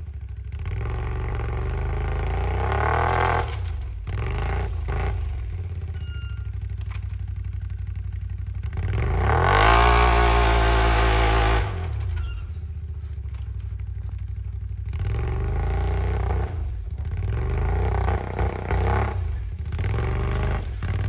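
Quad ATV engine revving hard in repeated bursts as it struggles through deep snow with its wheels spinning. The longest and loudest rev comes about ten seconds in, climbing in pitch, holding for a couple of seconds, then dropping off.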